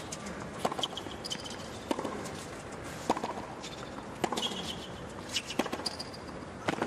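Tennis rally on a hard court: six sharp racquet strikes on the ball, about a second and a quarter apart, with short high sneaker squeaks on the court surface between the shots.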